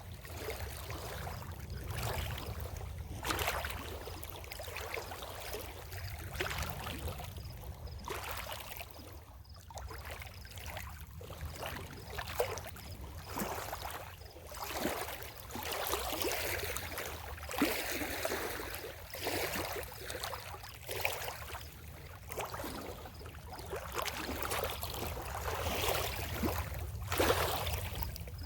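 Lake water splashing and washing at the shore in irregular surges, over a steady low rumble.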